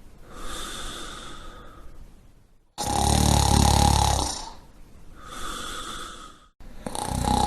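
Person snoring: a loud snore about three seconds in and another starting near the end, each followed by a softer, airy breath.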